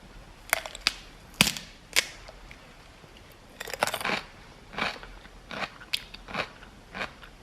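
Close-miked biting into a crisp cucumber, with three sharp crunches in the first two seconds, then steady chewing with a crunch about every half to three-quarters of a second.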